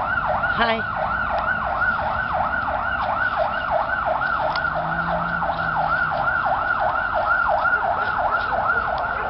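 Emergency vehicle siren in fast yelp mode, its pitch sweeping up and down about three to four times a second without a break.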